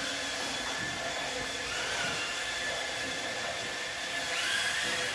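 Small electric motors of radio-controlled toy cars whining over a steady hiss, the whine rising in pitch as a car speeds up about two seconds in and again near the end.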